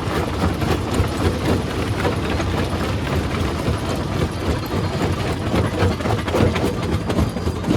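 Rock crusher running under load: a steady low engine rumble with frequent irregular knocks and clatter of stones being broken.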